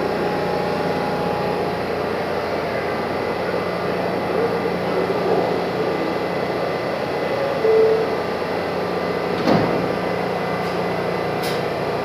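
A New York City subway train stands at the platform with a steady hum from its idling equipment. A short tone sounds near the eight-second mark, and about nine and a half seconds in the doors slide shut with a single sharp knock.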